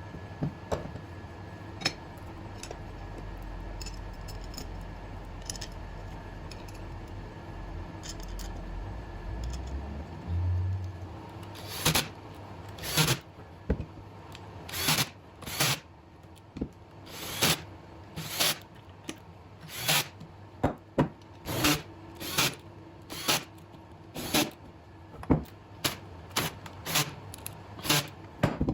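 A low hum for about ten seconds that rises in pitch before it stops, then a run of sharp metallic-sounding clicks and knocks, about one or two a second, like tools and parts being handled on a workbench.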